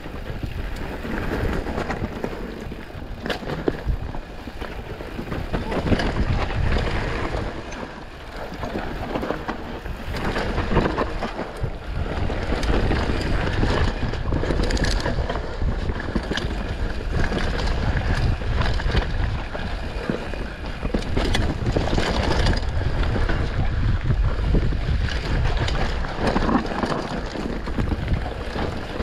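Mountain bike descending a rough dirt and rock trail: tyres rolling over the ground and the bike rattling, with frequent short knocks over bumps and wind on the microphone.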